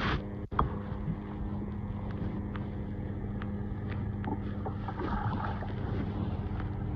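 Sea water splashing and lapping around a kayak on the ocean, with scattered small splashes and a steady low engine-like hum underneath.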